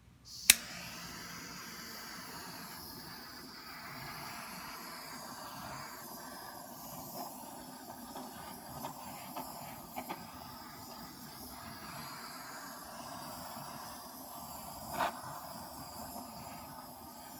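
A small handheld torch is lit with a sharp ignition click, then its flame hisses steadily as it is passed over a wet acrylic pour. A few faint clicks come later.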